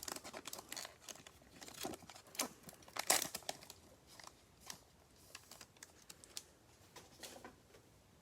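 Trading card pack wrapper crinkling and tearing as a pack is opened: a run of short crackles that thins out after about four seconds.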